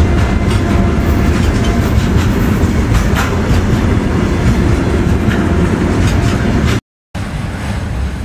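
Indian Railways freight train passing, its wagons rumbling with wheels clicking over the rail joints. Near the end the sound cuts out for a moment, then a steadier rushing noise follows.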